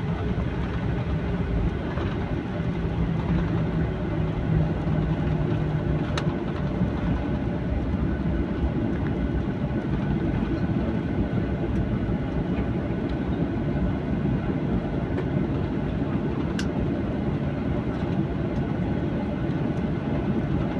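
Cabin noise of a taxiing Boeing 737-800: its CFM56-7B jet engines run at low taxi power, heard inside the cabin as a steady hum and rumble while the airliner rolls along the taxiway.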